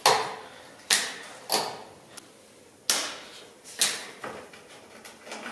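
About six sharp plastic clicks and snaps, irregularly spaced, as cable ties holding the headlight washers are removed.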